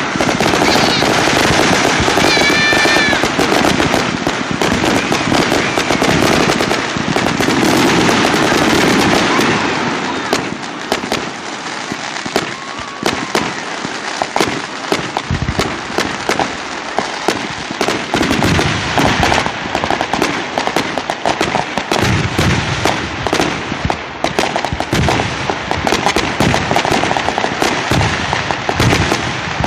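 Fireworks display: a dense, loud barrage with a few short high whistles near the start, thinning after about ten seconds into rapid, sharp crackling cracks.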